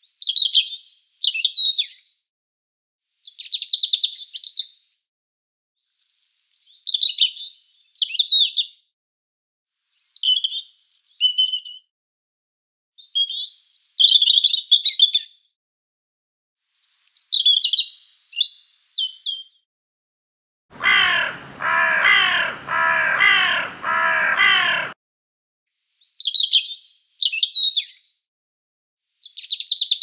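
European robin singing: a series of short, high, rapidly varied warbling phrases, each a couple of seconds long and separated by silent gaps. About two-thirds of the way through, a four-second run of lower, harsh repeated calls takes the place of the song.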